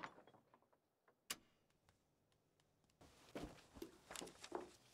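Near silence, with one faint click about a second in and a few faint soft taps and rustles in the last two seconds.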